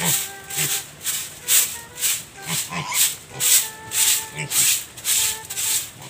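A short stiff broom sweeping a wet pen floor in quick, even strokes, about two a second.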